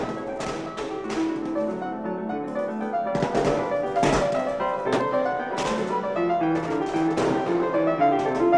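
Fast classical piano music with running notes, cut by sharp cracks of gunfire again and again.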